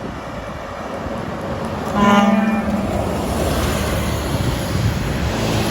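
A bus's air horn sounds one steady-pitched blast about two seconds in, lasting under a second, over the steady engine and road noise of passing buses.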